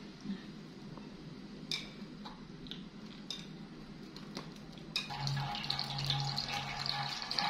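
A few light clinks and taps of kitchenware. About five seconds in, a steady sizzling hiss starts with a low hum under it: corn frying in a pan.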